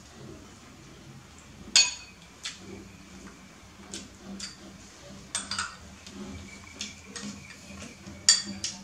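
Metal spoon clinking against a ceramic bowl during eating: about ten scattered sharp clinks with a brief ring, the loudest about two seconds in and near the end.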